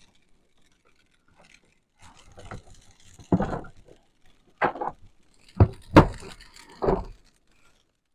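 A handful of separate knocks and clatters from things being handled, about five over the second half, the sharpest one near the middle.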